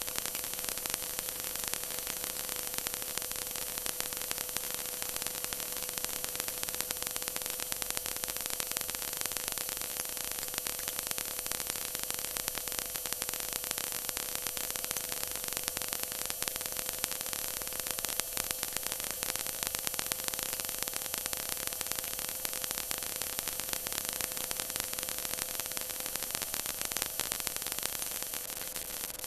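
Stock car's V8 engine running at steady, constant high revs, heard from inside the cockpit, where the mic overloads so it comes through as a harsh, hiss-like noise with one steady engine tone.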